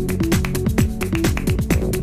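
Background electronic dance music with a steady beat.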